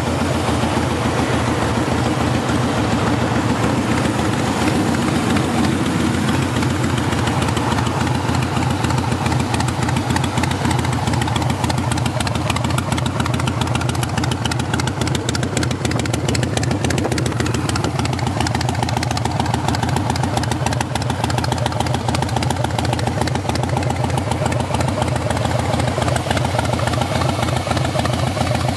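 Harley-Davidson Softail Slim (FXS) V-twin idling steadily through a Bassani aftermarket exhaust, in an even stream of exhaust pulses.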